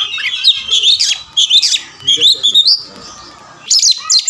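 Oriental magpie-robin singing a loud, varied song of whistles and chirps, the agitated fighting song of a kacer. It pauses briefly past the middle, then breaks into a rapid string of sharp notes near the end.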